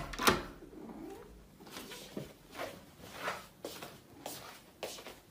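A sharp click at the very start, then a cat making a series of short, soft sounds, about two a second.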